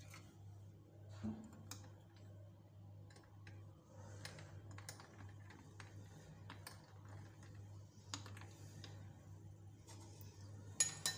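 Metal spoon stirring a thick milkshake with an ice cube in a glass mug: faint, irregular light clicks and taps of spoon and ice against the glass, over a steady low hum.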